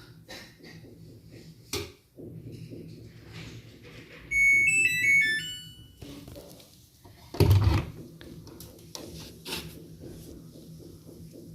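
Samsung EcoBubble washing machine's control panel playing its electronic beep tune: a quick run of short notes, mostly stepping downward, for about a second and a half, about four seconds in. A low hum runs underneath, and a single heavy thunk comes about three seconds after the tune.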